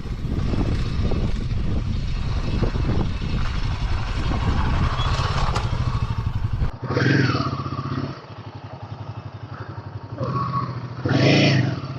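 Royal Enfield Himalayan 450's single-cylinder engine pulling the bike up a rocky off-road climb, with the bike clattering over stones. About seven seconds in the sound drops abruptly to a quieter engine with two short revs.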